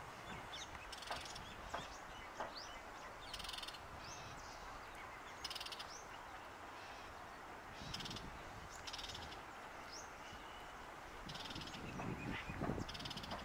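Wild birds calling: scattered short, falling chirps and, every couple of seconds, a harsh rasping call, over a low background haze.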